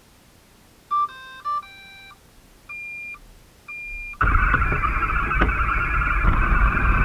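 Roomba robot vacuum starting a cleaning run: a short electronic start-up tune of beeps, then two longer single-pitch beeps, and about four seconds in its vacuum motor and brushes start with a loud steady whir.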